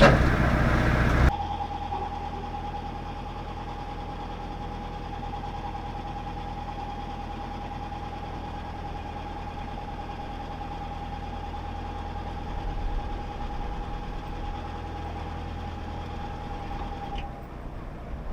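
A narrowboat's engine running steadily at low revs: a low hum with a steady high whine over it. A louder sound cuts off abruptly about a second in.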